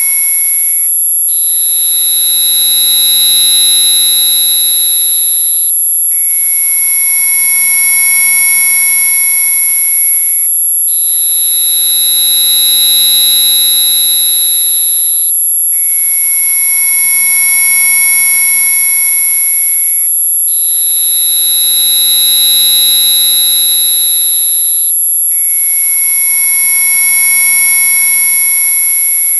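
Synthesized mosquito-repellent tone track: loud, steady electronic tones stacked at several pitches, led by a piercing high whine. The tones cut out for a moment about every five seconds, and with each restart a prominent middle tone switches between a lower and a higher pitch.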